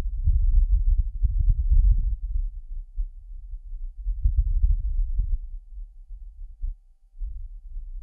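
Martian wind buffeting the Perseverance rover's microphone, with the rover's own noise filtered out. It is a low rumble that swells in a gust over the first two seconds, dies down, and comes back in a second gust about four seconds in.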